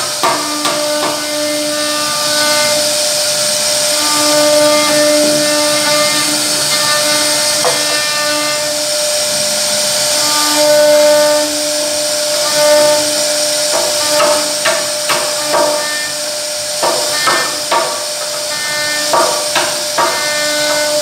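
CNC router carving wood: a steady high hiss from the spindle, whining tones that come and go, and irregular sharp clicks and knocks from the bit cutting, thickest in the second half.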